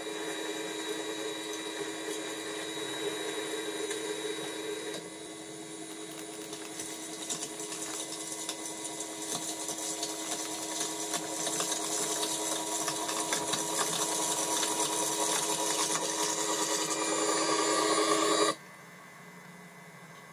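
Electric motors of a garden-scale model train plowing snow, a steady buzzing whine that dips about five seconds in, then grows louder and cuts off abruptly near the end.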